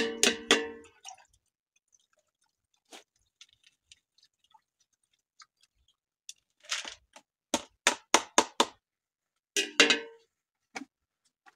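Kitchen utensils and containers knocking and clattering as boiled andız (Syrian juniper) berries are strained. A loud clatter at the start, a few faint ticks, then a quick run of knocks from about seven to ten seconds in.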